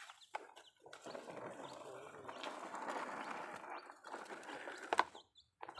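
Plastic toy excavator worked by hand in wet mud: a run of rattling, scraping clicks as its bucket digs and tips mud into a plastic toy dump truck's bed, with a few sharper knocks.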